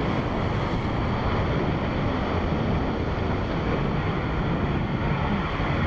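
Water and air rushing past as a rider slides fast down a waterslide flume, a steady, even rush with wind buffeting the microphone.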